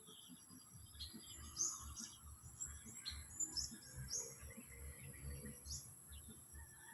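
Small parrot chirping: a scatter of short, high chirps spaced irregularly through the few seconds.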